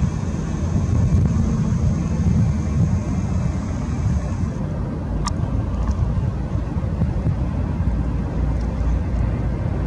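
Wind buffeting the camera's microphone, a steady low rumble. A faint high whine runs through the first half while the camera zooms in, and there is a single sharp click about five seconds in.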